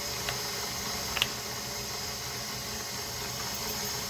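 KitchenAid stand mixer running steadily, its flat beater whipping butter and honey together in a stainless steel bowl. A couple of light clicks in the first second or so.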